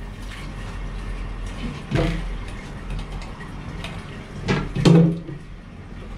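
Plastic toilet-cistern fittings being handled and refitted: scraping and clicks, with a sharp knock about two seconds in and a louder clatter near five seconds.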